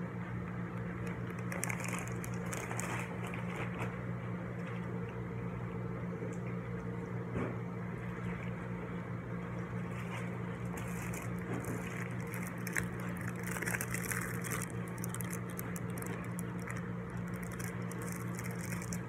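Clear plastic packaging crinkling in the hands in scattered bursts, over a steady low hum in a small room.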